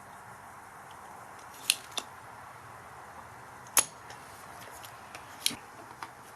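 A handful of sharp, single clicks of small hard objects knocking, spread irregularly over a steady faint hiss; the two loudest come about one and a half and four seconds in.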